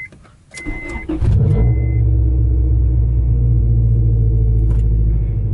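1998 Acura Integra's 1.8-litre four-cylinder engine starting about a second in after a brief crank, then idling steadily: a hot start that catches promptly. Before and just after it catches, a dashboard warning chime beeps in short repeated pulses.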